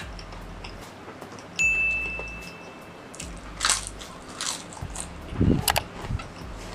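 Crunching and chewing of spicy chip crumbs eaten off the fingers, several sharp crackly bites in the second half. About a second and a half in, a steady electronic tone sounds for about a second and a half.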